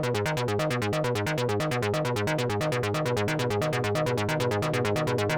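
Korg Monologue analog monosynth playing a fast sequenced pattern, about eight short notes a second in a repeating up-and-down figure, heard through the Dreadbox Raindrops delay pedal.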